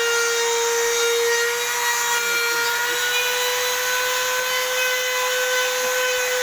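Small electric power tool running steadily: a constant hum over a hiss, with slight shifts in pitch.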